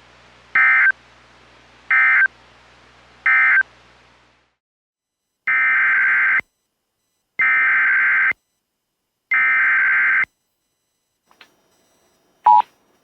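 Emergency Alert System SAME digital data bursts. First come three short end-of-message bursts about 1.4 s apart, closing the previous warning. After a pause come three longer header bursts announcing the next warning, followed near the end by a single short beep of the attention tone.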